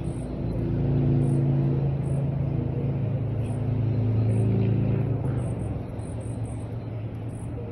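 A low, steady engine hum swells over a constant rumble for about five seconds, then fades, while short, faint high chirps recur.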